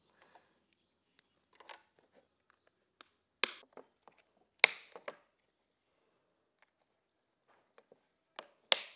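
Plastic bee escape cones being pressed and clicked into place in a plastic wasp trap tray: three sharp snaps, about three and a half seconds in, a second later, and near the end, with lighter taps of handling between.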